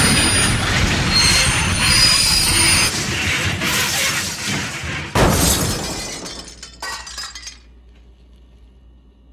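Crash noise of a model-train wreck: loud, continuous clattering and crashing, a sharp impact about five seconds in, then dying away to quiet about two seconds later.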